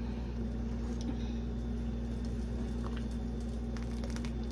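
Thick homemade Alfredo sauce bubbling in a pot while it is stirred: soft wet patter with a few light clicks, over a steady low hum. The sauce is cooking too fast on the heat.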